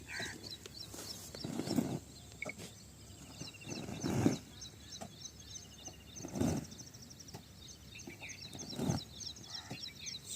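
Rural outdoor ambience of small birds chirping in quick repeated notes, with a louder, lower sound about every two seconds.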